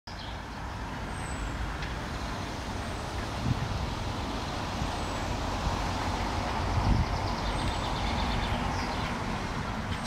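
Steady background rumble of city traffic, with two brief low bumps, one about three and a half seconds in and a louder one near seven seconds. Faint, very high, short bird calls sound now and then.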